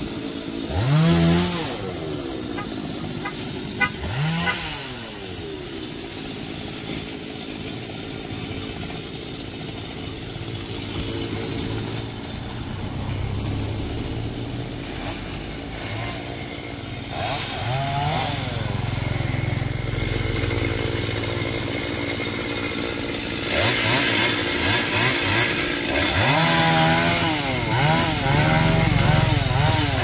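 Two-stroke chainsaw revved up again and again, its engine pitch rising in short sweeps, with the revs coming quickly one after another near the end. Through the middle a steadier engine hum builds as a motorbike passes on the road.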